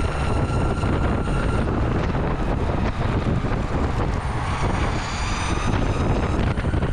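Electric skateboard ridden fast on the road: wind rushing over the microphone with a steady low rumble, and a faint high motor whine that drifts in pitch.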